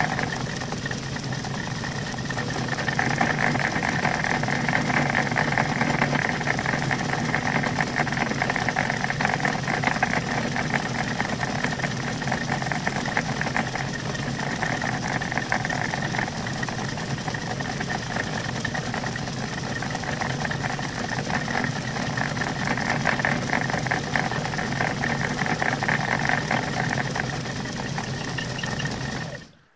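Machine-tool spindle running steadily while a high-speed-steel tool takes a slow, light interrupted cut across the two lugs of the spinning steel arbour. The sound cuts off suddenly just before the end.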